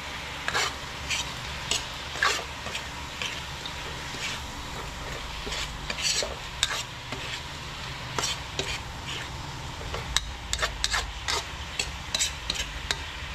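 Shrimp frying and sizzling with sautéed shrimp paste in a hot pan while a utensil stirs them, scraping and clicking against the pan at irregular intervals, more often in the second half.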